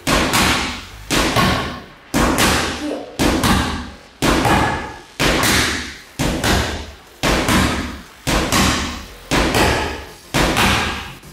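Boxing gloves landing hard on a Leone heavy bag and a punch pad held against it. The power punches come in quick pairs about once a second, a 4-5 combination repeated over and over.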